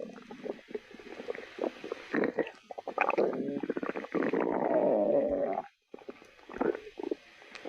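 An empty stomach growling from hunger. A run of short gurgles leads into one long rumbling growl from about four seconds in, which cuts off suddenly just before six seconds, and a few fainter gurgles follow.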